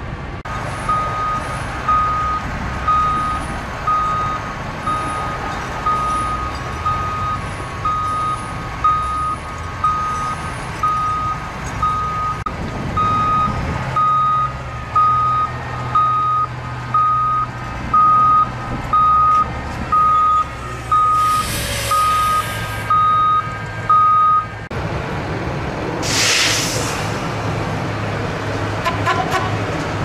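Backup alarm on construction equipment beeping steadily, a little more than once a second, over a running diesel engine. The beeping stops about 25 seconds in. There are two short bursts of hiss, one while the alarm is still going and one just after it stops.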